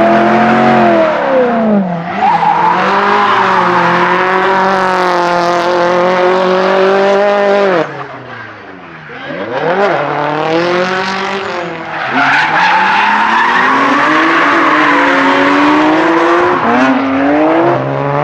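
Drift cars' engines at high revs, the pitch repeatedly climbing and falling as the throttle is worked through the slides, over continuous tyre squeal and skidding. The sound drops back briefly about eight seconds in before building again.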